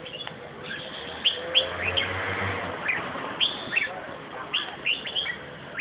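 Red-whiskered bulbul singing: a string of short, quick chirping notes, each sliding down in pitch, about a dozen over a few seconds at uneven spacing.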